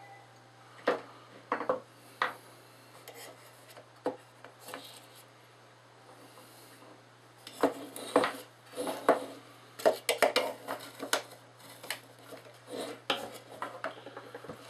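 Hand tools and a flood light housing clicking, knocking and rattling against a tabletop as the fixture is taken apart, in irregular bursts. The clatter is sparse at first, busier just past the middle, with a few more knocks near the end.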